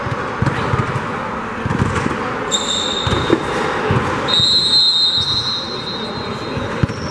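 Gym ambience at a basketball game: a basketball bouncing and scattered thuds on the court floor over a steady hum of the hall. A high steady whistle-like tone sounds twice, briefly about two and a half seconds in, then for about two seconds from about four seconds in, where it is the loudest sound.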